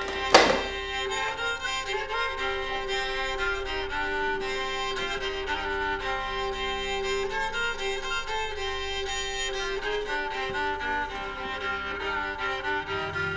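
Background music led by violin and strings, with held notes. A short sharp hit about half a second in.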